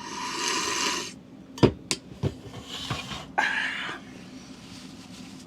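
Metal parts being handled and knocked together: a scrape, then three sharp clinks about a second and a half in, followed by two short scraping rattles.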